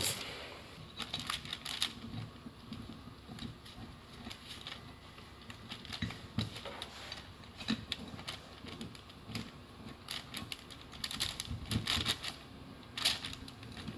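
Irregular light clicks and taps of brake caliper parts being handled, as a greased slide pin is worked into its bore and rubber boot.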